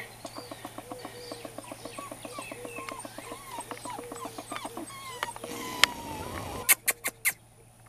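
Puppies whining and whimpering softly as they play, in short faint calls over a quick patter of small ticks. Near the end there is a rustle and then a few sharp clicks, the loudest sounds here.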